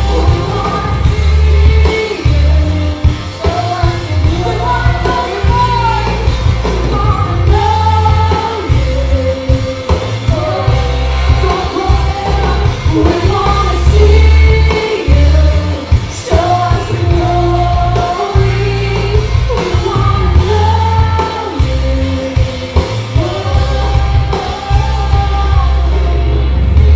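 Live worship band playing a praise song, with a singer carrying the melody over strong bass and drums.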